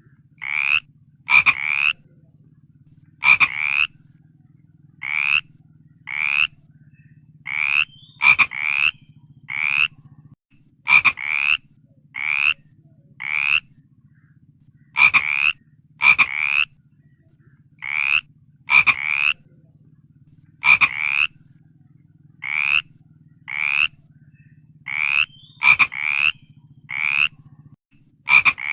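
A frog calling over and over: short rising croaks about one a second, often in pairs, some starting with a sharp click. A faint low hum runs underneath.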